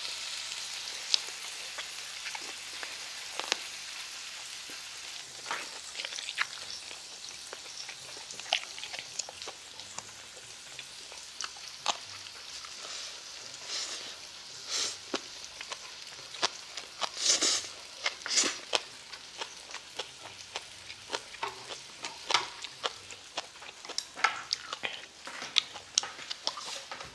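Pork belly and king scallop slices sizzling on a griddle over a portable gas burner, a steady hiss that eases slightly in the first few seconds. Scattered sharp clicks and taps run over it, more frequent in the second half.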